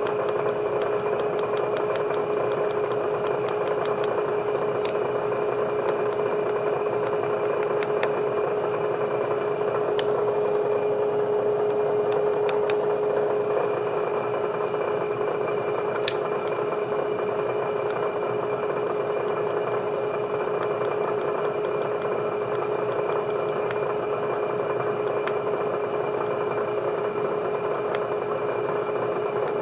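Steady machine hum with one strong constant tone, running unchanged throughout, with a single sharp click about sixteen seconds in.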